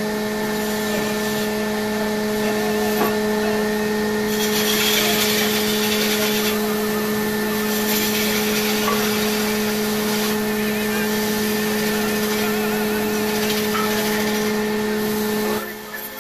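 Electric wood lathe running with a steady motor hum while a large wooden pillar spins, and a hand-held tool or abrasive rasps against the turning wood, louder in two long passes. The hum cuts off abruptly just before the end.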